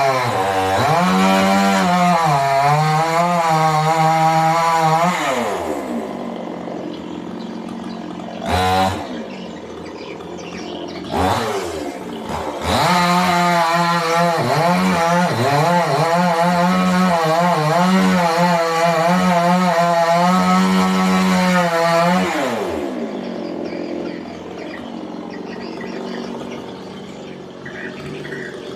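Two-stroke chainsaw at full throttle cutting wood, its pitch wavering under load. It drops back to idle after about six seconds and is blipped twice. It then cuts again at full throttle for about nine seconds before settling back to idle near the end.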